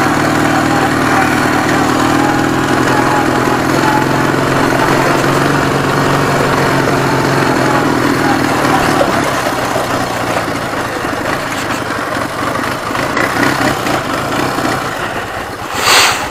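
Ural motorcycle's opposed-twin (boxer) engine running steadily, with its note thinning and wavering after about nine seconds as the bike eases off. A short loud rush of noise comes near the end.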